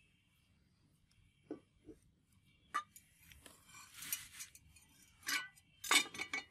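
Scattered light clicks and knocks of a steel cleaver with a brass handle being handled and laid down on a concrete floor. The loudest knock comes about six seconds in, as the blade settles on the concrete.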